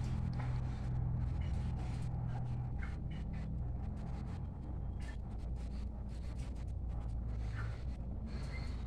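Faint scratching and clicking of pheasants moving on straw bedding, over a steady low hum, with a few faint short bird chirps.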